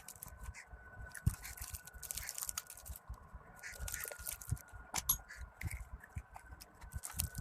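Hands working on small parts and tools: irregular clicks, scrapes and crinkling, over a faint steady high whine.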